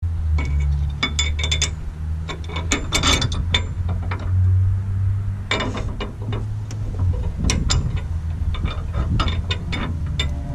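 Metal hitch hardware (bolts and a bracket) clicking and clinking as it is handled, in irregular sharp clicks with a dense cluster about three seconds in, over a steady low rumble.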